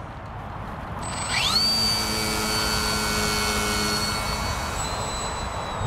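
A small electric RC aerobatic plane's motor and propeller spin up to a high, steady whine about a second in, ready for a hand launch. Its pitch dips slightly near the end as the plane is thrown.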